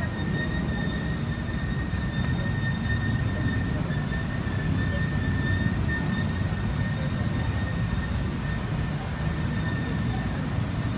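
Steady low rumble of city street traffic, with a thin, steady high-pitched whine over it.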